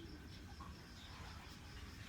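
Faint room tone with a steady low hum and a faint high steady tone.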